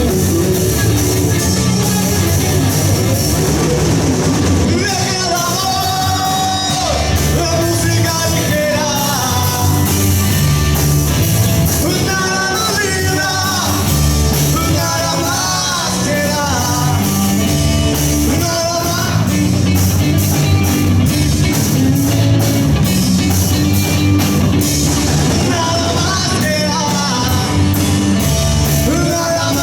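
Live rock band playing a cover song: electric guitar, bass guitar and drum kit, with a singer's vocal line over them, loud and steady throughout.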